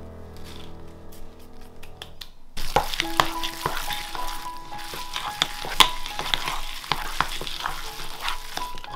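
Soft background music, then, about two and a half seconds in, the wet stirring of raw ground pork, shrimp and chive dumpling filling in a bowl sets in, thick with small clicks, with the music still faintly underneath.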